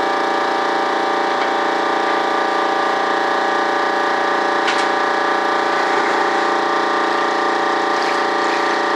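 A machine running steadily, giving a constant multi-tone whining hum that does not change pitch. A single faint click comes about halfway through.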